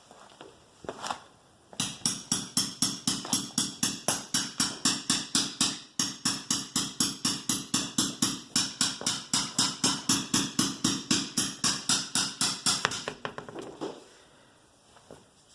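Ratchet wrench clicking in a quick even rhythm, about five clicks a second, as the wheel's lug nuts are run on, with a short break about six seconds in.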